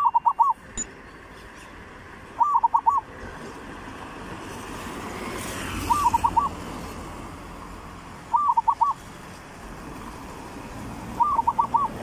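Zebra dove cooing: a short phrase of about four quick notes, repeated five times, about every three seconds.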